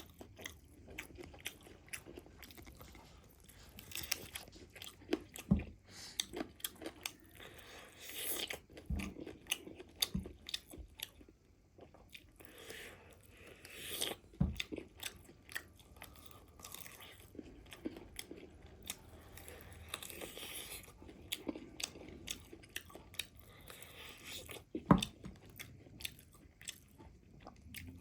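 Chewing, biting and crunching of crispy fried chicken leg pieces, a dense irregular run of crackles and mouth sounds, with a few sharper knocks.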